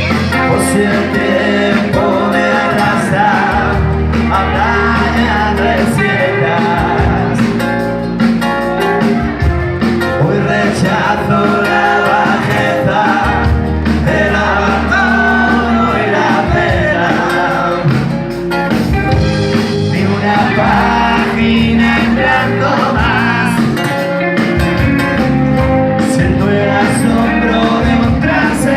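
Pop-rock band playing a passage of a song, with electric guitar, bass and drums at a steady beat.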